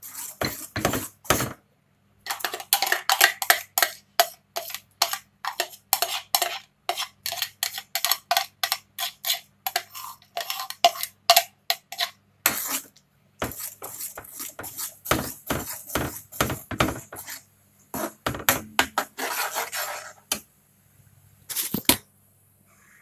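A metal spoon clinking and scraping against a glass cup and a non-stick kadai as tomato puree is scooped into the pan: rapid runs of clinks, broken by short pauses about two seconds in, thirteen seconds in and near the end.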